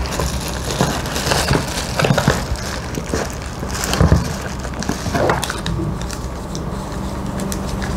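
Crinkling of plastic packaging and rustling of a cardboard box as items are handled and lifted out, with a dull thump about four seconds in.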